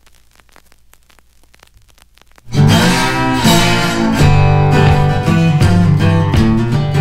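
Faint crackly noise, then about two and a half seconds in, intro music with strummed acoustic guitar starts suddenly and carries on.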